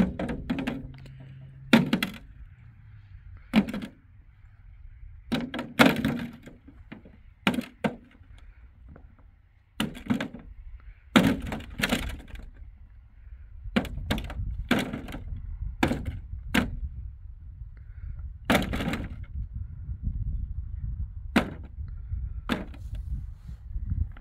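A series of sharp knocks and cracks at irregular intervals, some in quick pairs, like hard objects being struck or wood being broken.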